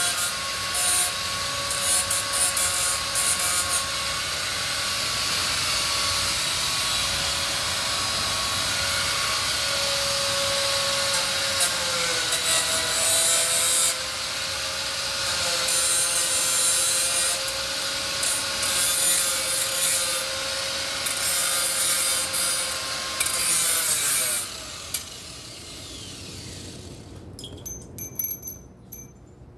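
Handheld angle grinder grinding the heads of steel bolts round: a steady motor whine over a harsh grinding hiss, dipping slightly in pitch about halfway. About 24 seconds in it stops and spins down, and wind chimes tinkle near the end.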